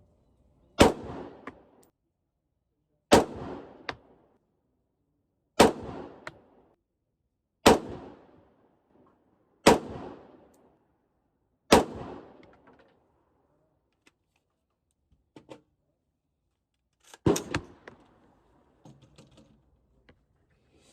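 Gunshots fired slowly: six shots about two seconds apart, each followed by a short echo. A pause with a few faint clicks follows, then one more shot near the end.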